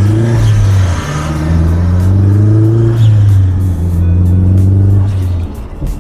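Mazda3 MPS's turbocharged 2.3-litre four-cylinder engine accelerating hard, its pitch climbing through the gears with a shift about a second in, then easing off near the end.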